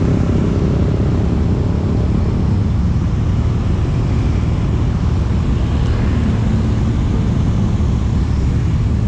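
Steady low rumble of road traffic, motorcycles and cars passing.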